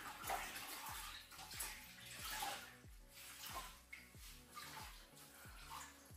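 Water sloshing and splashing as a cloth is swished and squeezed in a plastic bucket by rubber-gloved hands, in irregular bursts. Background music with a steady beat runs underneath.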